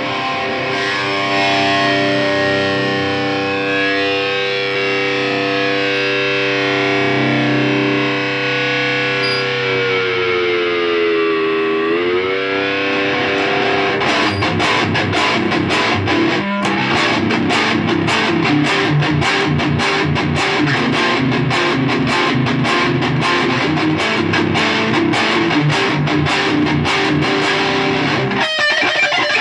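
Electric guitar with heavy high-gain distortion, played through a Seymour Duncan JB humbucker in the neck position. Sustained ringing chords first, with a dip in pitch and return about a third of the way in, then fast, tightly picked riffing from about halfway, with a brief stop near the end.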